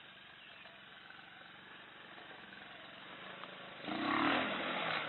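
Small youth-size ATV engine running, faint at first, then much louder about four seconds in as the quad climbs over a log crossing.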